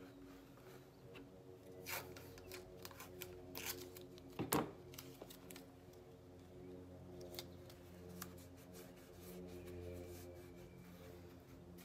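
Hands handling a helmet shell and blue painter's tape: scattered soft crinkles, rubs and taps as the tape is pressed and smoothed onto the shell, with one louder crackle about halfway through. A faint steady hum runs underneath.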